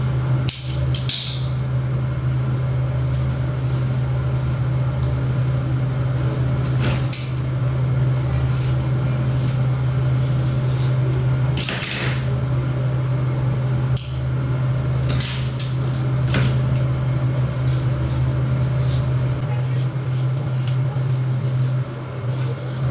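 A steady electric hum with a hiss over it, broken by scattered clicks and short bursts of hiss.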